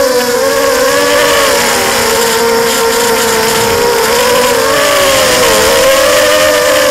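Brushless motors and propellers of an FPV racing quadcopter, heard through its onboard camera: a loud, steady buzzing whine whose pitch wavers and dips briefly a few times as the throttle is eased and opened again.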